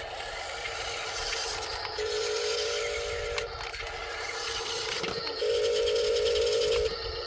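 Small electric motors of an RC excavator whining with a buzzing note in two bursts of about a second and a half, about two seconds in and again about five and a half seconds in, the second louder, over steady gritty scraping and rattling.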